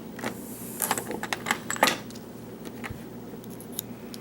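Scattered light metallic clicks and taps, a handful in the first two seconds and one more near three seconds in, from a padlock and small metal tools being handled.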